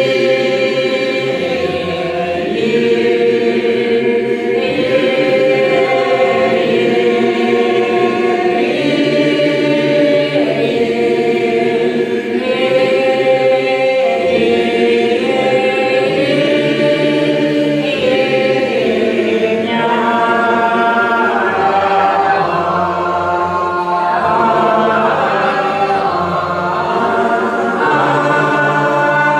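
Doukhobor psalm sung a cappella by a group of voices, in long held notes that slide slowly from one pitch to the next.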